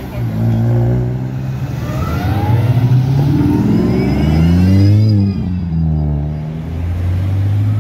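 Car engine accelerating, its pitch climbing over a few seconds and falling away about five seconds in, then rising briefly again before settling to a steady run.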